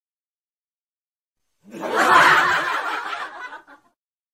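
A burst of laughter, starting nearly two seconds in and lasting about two seconds before fading out.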